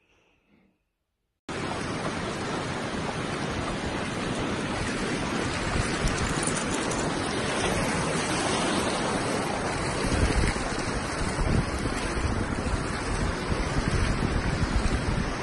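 Wind blowing on the microphone over shallow sea surf washing in, starting abruptly about a second and a half in after near silence, with stronger gusts in the second half.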